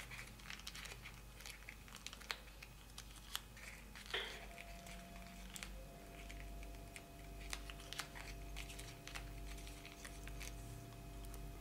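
Faint crinkling of a sheet of origami paper as fingers bend and curl the petals of a folded paper lotus, with scattered small ticks of the paper.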